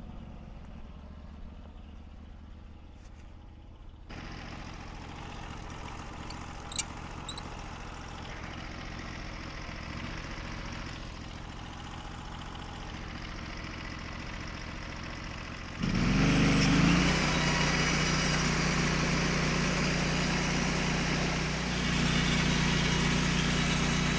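Small gasoline engine of a portable log mill running at low speed, getting louder about four seconds in, then throttling up sharply about two-thirds of the way through and running steadily at high speed for the cut.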